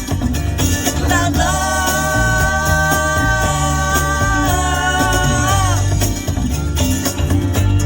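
A 1970s rock recording, with a voice holding one long note over the band for about four seconds.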